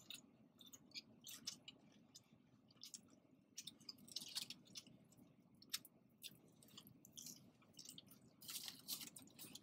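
Faint close-up chewing and mouth smacks of a person eating, scattered soft clicks with a small cluster near the end.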